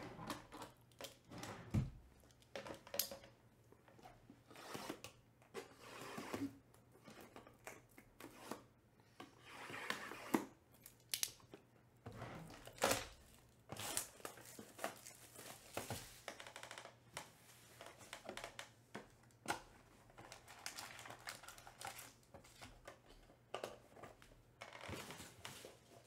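Trading-card boxes being opened by hand and their foil card packs handled: scattered crinkling and tearing of wrap and packaging, with light clicks and knocks of cardboard.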